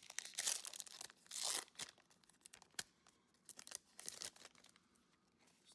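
Foil wrapper of a Pokémon trading card booster pack being torn open by hand. There are loud crinkling rips in the first two seconds, then quieter rustling and light clicks as the stack of cards is slid out.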